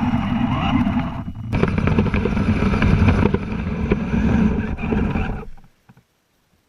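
Kyosho Blizzard FR RC snow cat's motor and tracks running over snow, a dense clattering churn with a short break about a second and a half in. It cuts off suddenly about five and a half seconds in.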